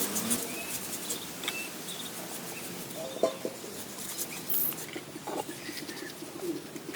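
Birds calling: short high chirps and a few low, dove-like coos, with scattered light clicks throughout.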